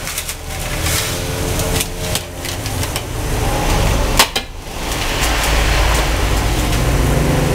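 Steady low rumble of an open burner flame and broth boiling in a large aluminium wok, with a metal ladle stirring and one sharp clank of ladle against the wok about four seconds in.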